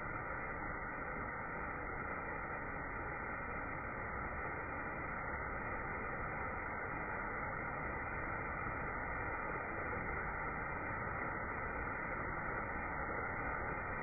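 Waterfall rushing, slowed down with the slow-motion footage: a steady, muffled rush with no high end.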